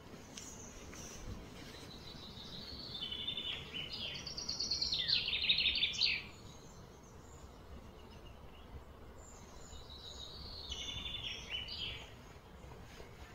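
A high, rapidly pulsed chirring call from a small wild creature swells over a few seconds and cuts off suddenly, then comes again more briefly and faintly near the end, over steady outdoor background noise.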